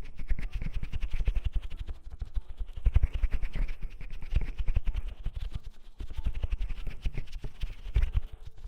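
Oiled hands rubbing and massaging the ears of a binaural ASMR microphone, heard very close as a dense run of slick rubbing strokes, with brief pauses about two and six seconds in.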